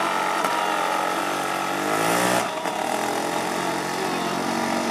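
Honda CR500 single-cylinder two-stroke dirt bike engine running under throttle, its rear tyre churning water and throwing spray that hisses. About two and a half seconds in, the revs dip briefly, then climb again.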